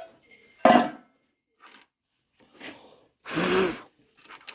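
Two short, loud breath noises from a person, a sharp one about a second in and a longer, partly voiced one about three and a half seconds in.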